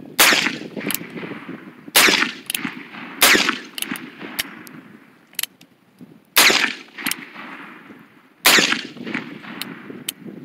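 A cap-and-ball black powder revolver firing five shots, one to two seconds apart, each a sharp loud report with a short ring after it. Fainter clicks fall between the shots.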